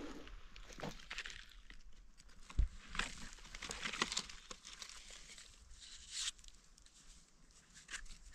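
Dry leaf litter crackling and soil scraped as a red mushroom is dug out of the ground with a small knife, a run of small clicks and rustles, with one dull knock about two and a half seconds in.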